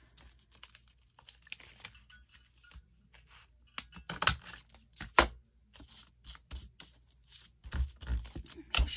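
Small handheld plastic paper punch worked on a folded book-page pocket to cut a finger notch: paper rustling and small clicks as it is positioned, then two sharp clacks about four and five seconds in as it punches through. Near the end more knocks and paper handling as the paper is moved.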